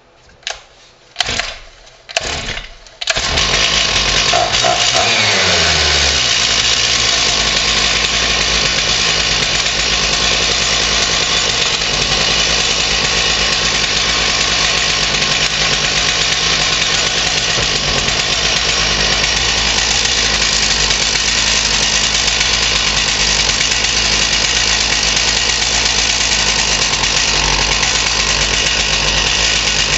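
Stihl MS461 two-stroke chainsaw engine pull-started, already warm: a few quick pulls on the starter rope, then it catches about three seconds in. It runs fast for a moment, the revs fall, and it settles into a steady run.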